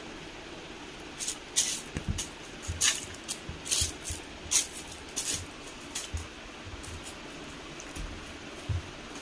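A cat rummaging about a fleece tunnel bed: a run of short, sharp rustles in the first half and a few soft bumps scattered through.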